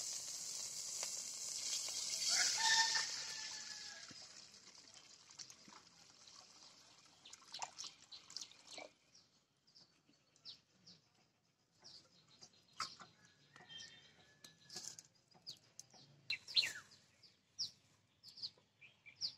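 Water poured into a hot, dry iron wok, hissing and steaming hard at first and dying away over the first five seconds or so. After that come short bird chirps, scattered.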